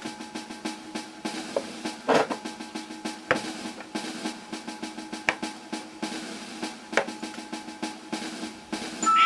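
Background music with a snare-drum pattern of quick, regular strikes over a steady held chord.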